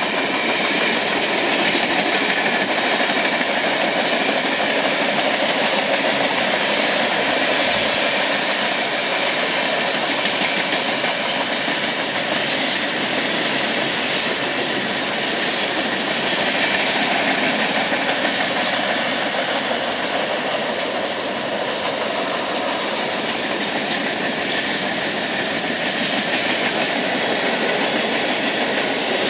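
Freight train cars, mostly tank cars and boxcars, rolling past steadily on the rails in a continuous rush of wheel noise, with a few short clanks now and then.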